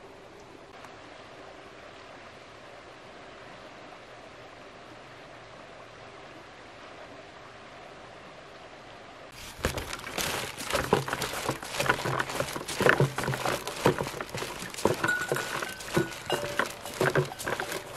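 Faint steady outdoor background, then about halfway through a sudden start of rapid clattering, knocking and rustling: footsteps and carried gear knocking together as someone walks with a woven back-basket, plastic bucket, hose and plastic pipe.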